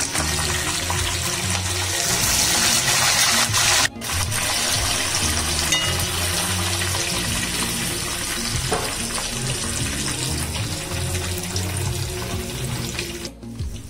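Hot oil sizzling steadily as a whole stuffed chicken deep-fries with curry leaves, cut off briefly about four seconds in. Background music with a low beat plays underneath.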